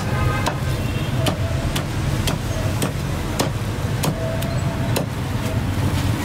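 Steel cleaver chopping roast duck on a thick wooden chopping block: sharp chops about twice a second, over a steady low rumble.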